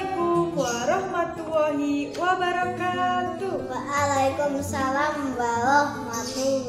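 A children's song: a voice singing a melody over instrumental backing music.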